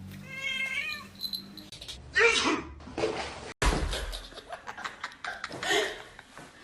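A domestic cat meowing once in a drawn-out call, then a person's short voiced sounds and laughter.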